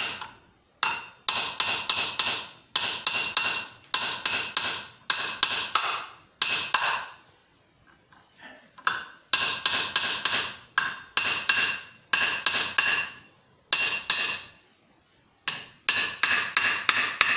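Hammer tapping a steel ball bearing down into the mouth of an annealed brass .50 BMG cartridge case set in a holed plate on an anvil, ball-swaging the mouth wider. Light blows at about two or three a second, each with a bright metallic ring, broken by two short pauses, around eight and fifteen seconds in, while the piece is rotated.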